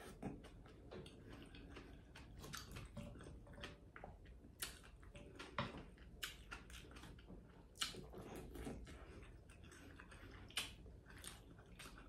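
Close-up chewing and wet mouth sounds of someone eating sauce-dipped cucumber and rice, with a run of small irregular crunches and clicks and a few sharper, louder ones.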